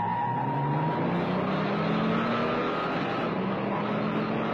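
Big-block V8 cars, a Chevrolet 396 Turbo-Jet against a Ford 390 Thunderbird, accelerating hard side by side in a drag run. The engine note climbs steadily in pitch, drops back about three seconds in at an upshift, and climbs again.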